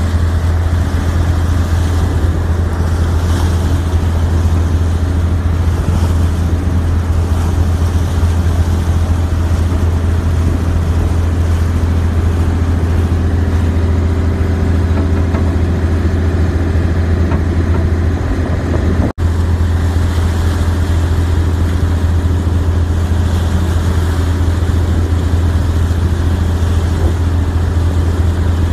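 Steady low drone of a boat's engine running at constant speed on the water, with a haze of water and wind noise over it. The sound cuts out for an instant about two-thirds of the way through.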